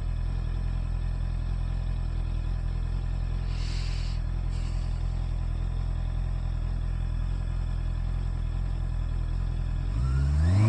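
Honda CBR650R inline-four engine idling steadily in gear at a standstill, its E-Clutch motors holding the clutch disengaged without the rider using the lever. Near the end the revs rise as the bike pulls away.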